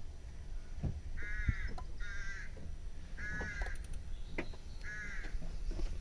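A bird calling four times, short repeated calls about a second apart, with a few light knocks in between.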